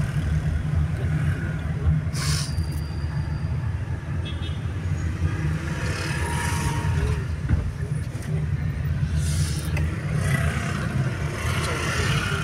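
Road noise from inside a moving vehicle in city traffic: a steady low engine and tyre rumble, with a brief hiss about two seconds in.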